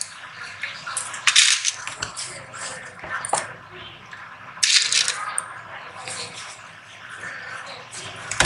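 Small plastic snap fasteners clattering in a plastic compartment box as fingers pick through them, mixed with clicks from handling snap pliers. The clattering comes in several separate spells, the loudest about a second in and about five seconds in.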